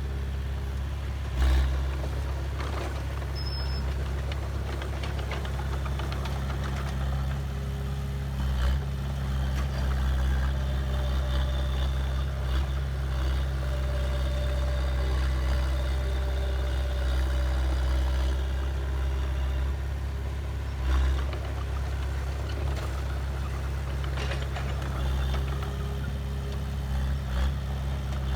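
Diesel engine of heavy earthmoving machinery running steadily at a low, even pitch. A few short knocks come through it, the loudest about a second and a half in.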